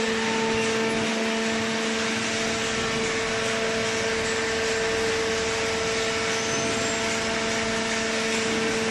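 Hydraulic cardboard baler's electric motor and pump running with a steady hum.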